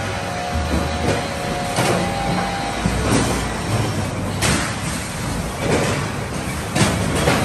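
Log debarking machine running, stripping bark from logs to round them: a steady, noisy mechanical din with irregular sharp knocks as the logs shift and strike the rollers.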